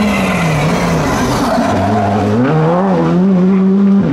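Rally car engine through a hairpin: its note falls as the car brakes into the bend, then climbs and holds steady as it accelerates away, with tyres skidding on the loose surface.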